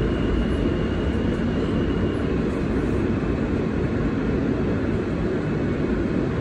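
NYC subway car in motion, heard from inside the car: a steady, heavy rumble. A faint high whine sits over it for the first two seconds or so.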